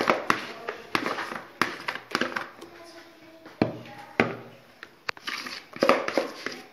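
Spatula scraping cake batter out of a bowl and spreading it in a baking tray, with repeated sharp knocks of the spatula against the bowl and tray.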